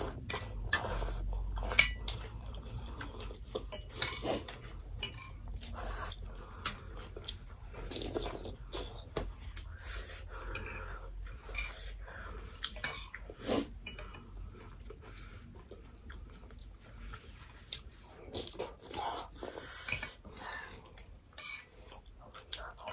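Close-up eating sounds: noodle soup being slurped and chewed, with spoons and forks clicking against bowls in short irregular bursts.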